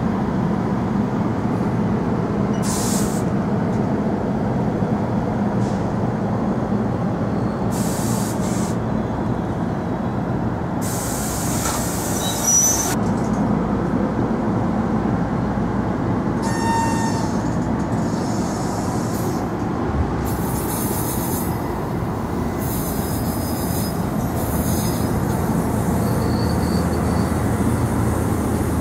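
NJ Transit Multilevel double-deck coaches rolling past close by, a steady rumble of steel wheels on rail. Short high-pitched wheel squeals and hisses come and go several times.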